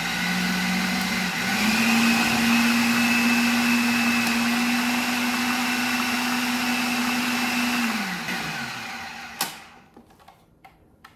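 Food processor motor running, pureeing a packed-full bowl of thick dog-food mixture. Its hum steps up in pitch about a second and a half in and holds steady. It winds down with a falling pitch about eight seconds in, followed by a single click.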